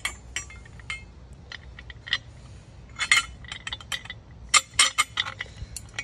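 Metal thumb screw clinking and tapping against the handrail and seat spacer as it is fed through: irregular light clinks, busiest about three seconds in and again around five seconds.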